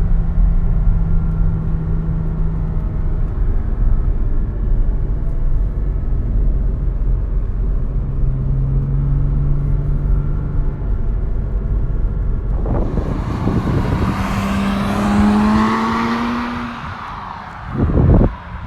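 Porsche 987.1 Cayman S's 3.4-litre flat-six running steadily at a cruise, its note dropping to a lower pitch about eight seconds in. About twelve and a half seconds in it turns much louder and fuller, the pitch rising as the engine pulls hard under throttle. It falls away near the end, with a short loud burst just before the close.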